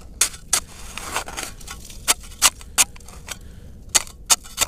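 A small hatchet chopping at the ice of an ice-fishing hole: about ten sharp blows at uneven intervals, chipping it open.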